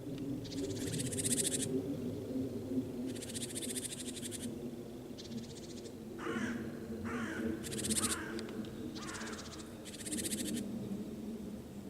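Harsh, rasping animal calls over a steady low rumble: four long raspy calls, with a run of short falling calls in the second half.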